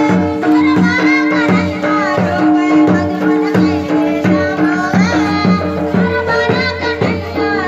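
Loud Indian dance music with a steady drum beat under a wavering melody.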